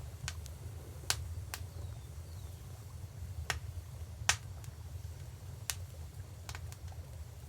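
Wood fire crackling: about ten sharp, irregular pops, the loudest about a second in and just past four seconds in, over a steady low rumble.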